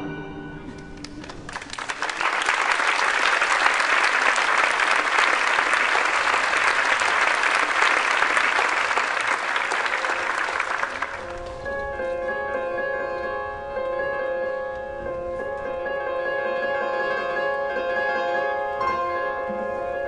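Audience applauding for about ten seconds, then a live string ensemble begins softly with several notes held steadily together.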